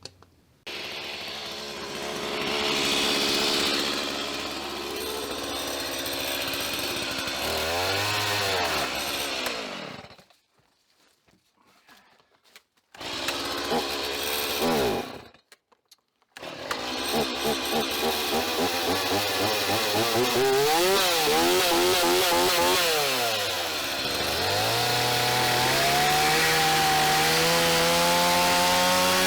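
Chainsaw engine running and revving up and down as it cuts wood. It stops twice briefly, then runs on with the revs climbing near the end.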